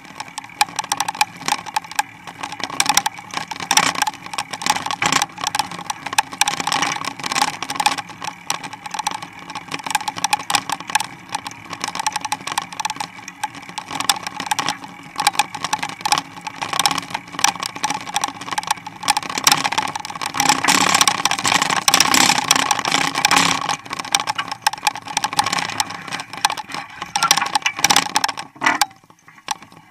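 Mountain bike with a Springer dog-leash attachment rolling over cracked pavement: constant rattling and clatter from the bike and its fittings, with a steady hum underneath. It quietens briefly near the end.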